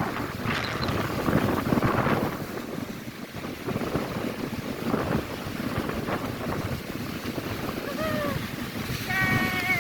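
Rough storm surf washing onto the shore, with wind buffeting the microphone. Two short pitched cries sound near the end.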